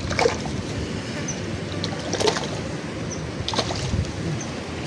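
Steady rushing water noise at the river's edge, broken by a few sharp knocks, as a hooked fish is played on a spinning rod. A faint high chirp repeats about every second and a half.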